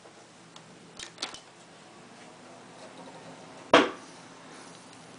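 A desktop PC's power button, built into a Lego minifigure, is pushed down with a couple of light clicks about a second in. A single sharp, loud click comes a little before the end as the computer powers on, over a faint steady hum.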